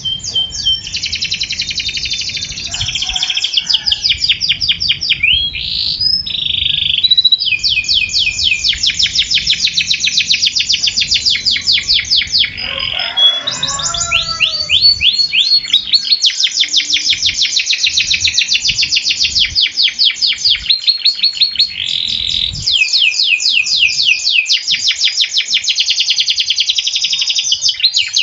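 Male F1 Yorkshire-cross canary singing a long song of rapid, closely packed trills and rolls with only a few short breaks. The long, steady song duration is this bird's strong point.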